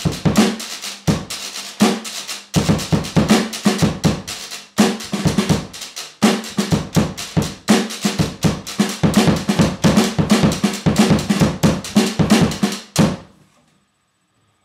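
Snare drum, bass drum and metal washboard played together as a makeshift drum kit: a fast, busy run of beats that stops suddenly near the end.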